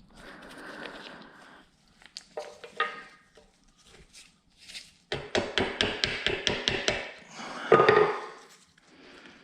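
A hammer striking a metal ring on a ring mandrel. A few scattered taps come first, then a quick even run of about ten blows, roughly five a second, about midway through. A brief louder sound follows near the end.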